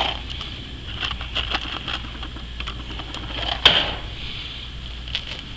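Light clicks and taps of loose nails being handled and set down on a tin roof, with one louder knock a little past the middle.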